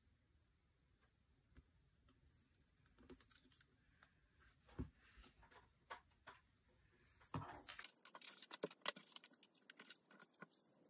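A few faint ticks and scratches of a craft knife and paper cut-outs on a cutting mat, then, from about seven seconds in, louder rustling and crackling of large paper sheets being moved and handled.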